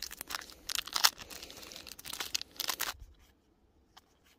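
Foil Pokémon booster-pack wrapper crinkling and tearing as it is pulled open by hand. It stops about three seconds in, followed by a few faint clicks.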